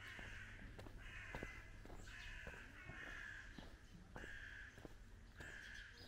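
Crows cawing repeatedly: a series of about six harsh caws, each under a second long.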